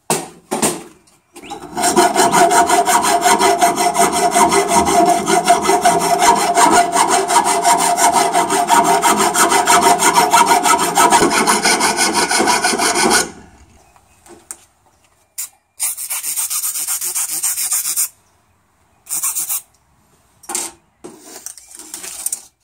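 The rough-cut steel end of a sawn-off 12-gauge double-barrel shotgun's barrels being evened up by filing or grinding. There is a continuous rasping run of about twelve seconds, then several short separate bursts.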